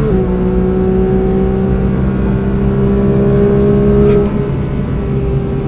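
Porsche 992 GT3's naturally aspirated flat-six at full throttle, heard from inside the cabin. It upshifts with a quick drop in pitch right at the start, pulls hard with the pitch slowly rising, then the driver lifts off about four seconds in and the sound eases.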